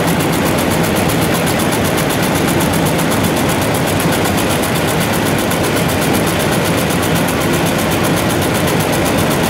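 Steady, loud din of textile mill machinery, with a fast, even ticking running through it.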